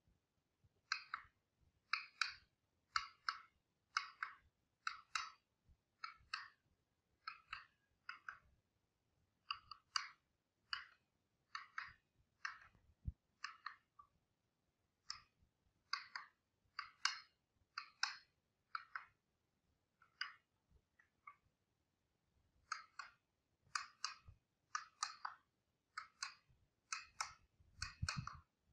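Wooden mallet striking the handle of a wood carving chisel as it cuts into a carved wooden panel: sharp taps about once a second, many in quick pairs, with a couple of brief pauses.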